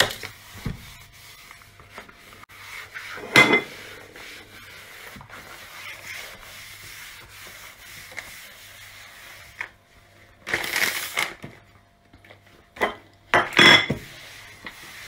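Rubber-gloved hand rubbing an antibacterial wipe over a kitchen countertop and wall sockets, with a few sharp clatters about three seconds in and near the end, and a short noisy burst about ten seconds in.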